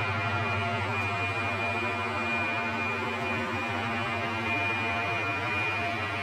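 Steady machine drone: a low hum under a high, even whine, at a constant level.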